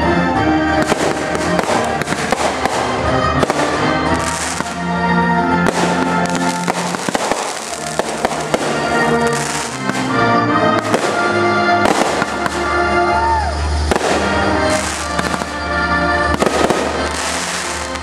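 Aerial fireworks shells bursting overhead, many bangs one after another, with music playing alongside.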